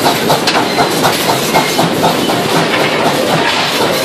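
Steam train working up a grade, heard from on board: a steady loud running noise carrying a fast, even beat of several pulses a second.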